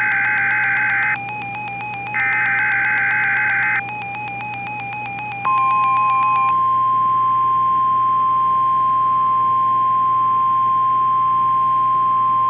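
Emergency Alert System SAME header data bursts, a harsh digital warble sent twice with a pause between. About five and a half seconds in they give way to the NOAA Weather Radio 1050 Hz warning alarm tone, a single steady tone that signals a warning message is about to follow.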